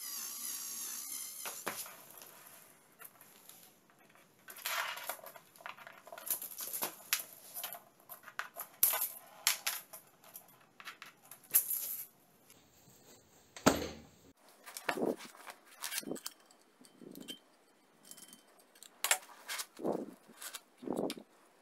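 Handling noises from tools and objects: a string of separate clicks, taps and scrapes, one sharper knock about halfway through. Before them a cordless drill runs briefly and stops about a second and a half in.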